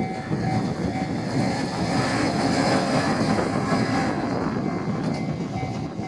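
Two-car diesel limited-express train approaching a level crossing, its running noise building over a couple of seconds, while the crossing bell keeps ringing.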